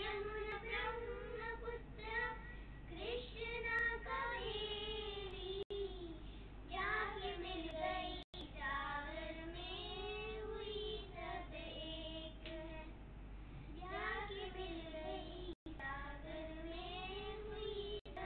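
Three young girls singing a song together in children's voices, in long held phrases. The sound drops out for an instant a few times.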